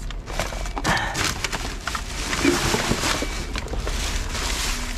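Black plastic rubbish bags rustling and crinkling as gloved hands shift and pull them aside, with scattered small cracks and knocks.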